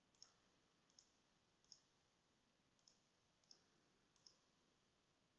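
Faint computer mouse button clicks, six of them at uneven intervals of roughly a second.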